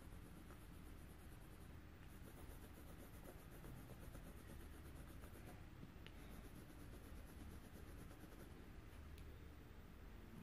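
Faint scratching of a coloured pencil shading on paper, in runs of quick back-and-forth strokes with short pauses between them, stopping near the end.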